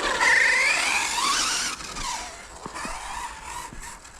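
Brushless electric motor of a radio-controlled car whining, its pitch rising and falling as it speeds up and slows down. It is loudest in the first two seconds, then fades.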